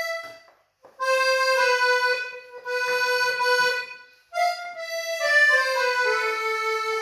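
Small piano accordion playing a slow melody of held single notes, with a short break about half a second in and again around four seconds, then a phrase stepping downward to a long held final note.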